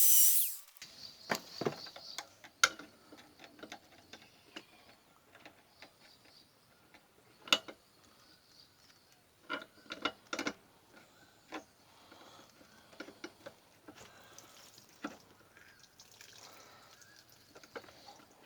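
Scattered light clicks, taps and small scrapes of a screwdriver working in a grinder-cut slot, trying to turn a seized nut on an old tail-light assembly. The soft metal of the slot gives way, so the nut does not turn. The sharpest clicks come a few seconds apart, with quiet fiddling between them.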